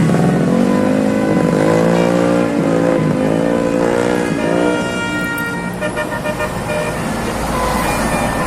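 Bus 'telolet' musical air horns playing a multi-note tune. For the first four and a half seconds the notes warble up and down in pitch, then they give way to shorter, higher notes over a low engine rumble.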